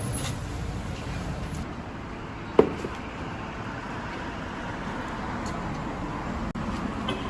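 Steady background rumble and hiss, with one sharp knock about two and a half seconds in.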